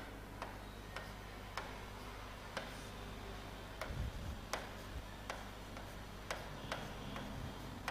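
Writing on a board: light, irregular taps about once or twice a second, over a low steady hum.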